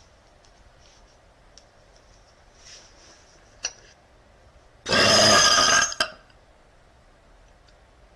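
A woman's single long, loud burp lasting about a second, coming after a brief click.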